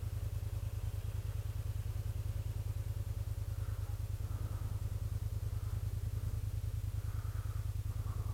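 Kymco AK550 maxi-scooter's parallel-twin engine running steadily at low revs, a fast, even low pulsing that holds the same level throughout.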